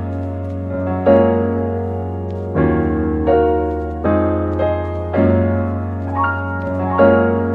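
Background music: slow, gentle electronic piano or keyboard chords, a new chord about every second or so.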